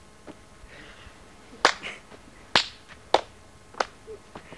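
Four sharp smacks of staged punches landing on a person lying on the ground, spaced a little under a second apart and starting about a second and a half in.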